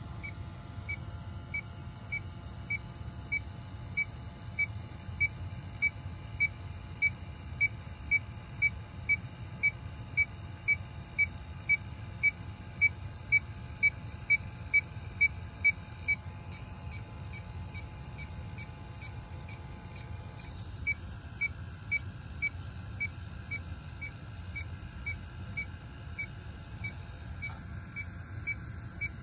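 Inficon D-Tec 3 electronic refrigerant leak detector beeping steadily at one pitch, about one and a half beeps a second, while its probe samples air at a frozen evaporator coil. The beeps grow louder, stop about 16 seconds in and return more faintly about 21 seconds in, over a steady low hum.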